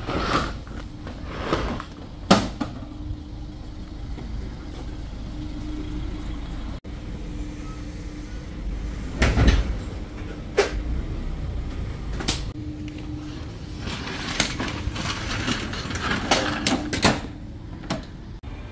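Knocks and clatters from handling a curtain-sided van's tarpaulin curtain and its metal fastenings, with the sheet rustling. The loudest knock comes about halfway through, and a quick run of clicks follows a few seconds later.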